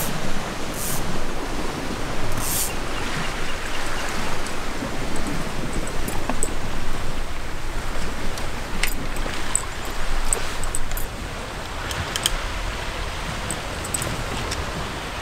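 Steady rushing of waves washing against a rocky shore ledge, a little quieter from about eleven seconds in, with a few faint clicks.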